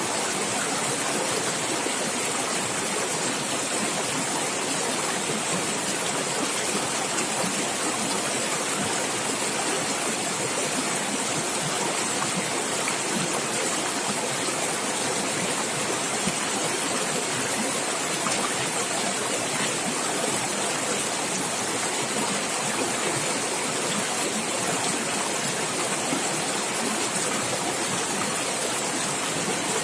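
Running water in a stream, splashing and gurgling in a steady, even rush.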